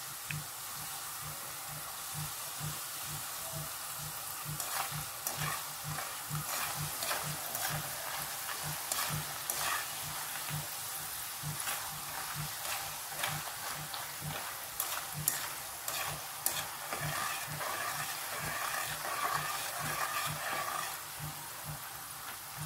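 Raw banana slices sizzling and bubbling steadily in hot oil in an aluminium kadai during their second fry, which crisps them into chips. Irregular clicks and scrapes come from a thin stick stirring the slices against the pan.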